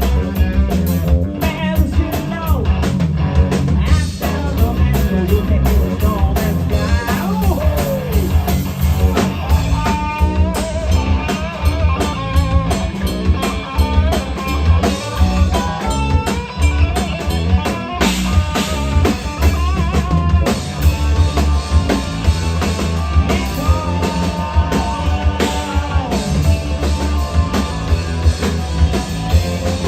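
Live rock band playing loudly: a drum kit beating out a steady rhythm with electric guitar and heavy bass, and a voice singing over it.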